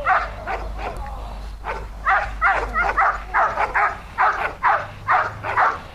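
Protection-trained dog barking hard at a decoy on the 'watch' command. After a brief lull, the barks come in a steady run of about three a second from just under two seconds in.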